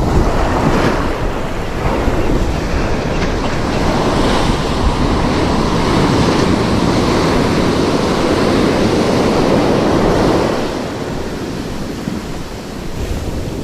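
Ocean surf breaking and washing up the beach, with wind buffeting the microphone as a low rumble. The wash eases off about ten seconds in.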